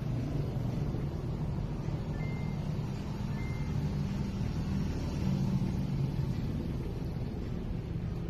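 A steady low engine hum, like a motor running at idle, with two short high peeps about two and three and a half seconds in.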